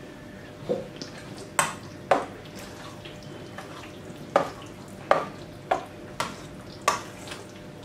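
A metal spoon stirring thick yogurt and roasted eggplant salad in a stainless steel bowl, clinking sharply against the bowl's side about eight times at uneven intervals.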